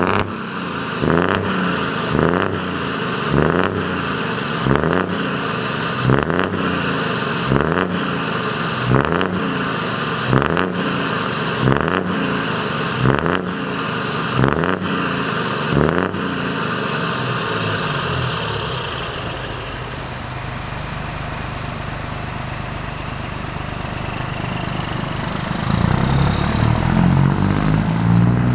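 Scania NextGen S500 truck's 13-litre straight-six revved through an open exhaust pipe: about a dozen quick throttle blips, roughly one a second, then a steadier lower running note that rises again under acceleration near the end.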